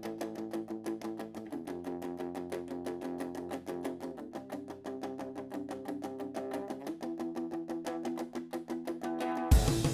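Background music: a guitar plays a fast, even picked or strummed pattern over chords that change every few seconds, with no drums. Near the end the loud full band with drums comes back in.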